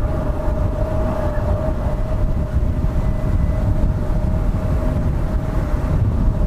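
Embraer E175's twin GE CF34 turbofan engines running at low power as the jet lines up for takeoff: a steady whine over a deep rumble.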